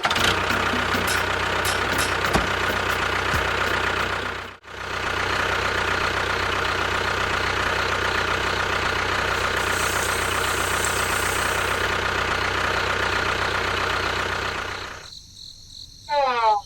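Engine running steadily at idle. It cuts out briefly about four and a half seconds in and drops away near the end, where a short rising sweep sounds.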